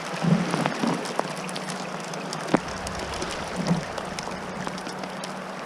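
Small hail and rain coming down, a dense patter of sharp ticks from the stones striking, with one louder tick about two and a half seconds in.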